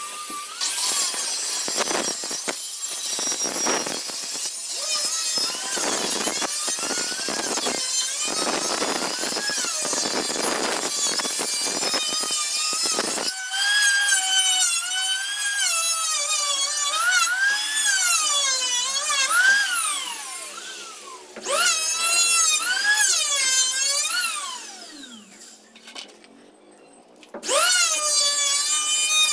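Power tools working timber: for about the first half a rough, pulsing cutting noise on wood, then an electric drill whining, its pitch rising and falling as the trigger is eased and squeezed. The drill drops away for a couple of seconds and starts again near the end.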